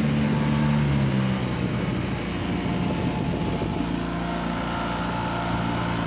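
Motorboat engine running under way, with the rush of water from the hull and wake. The engine note fades back into the water noise about a second and a half in and comes up again near four seconds.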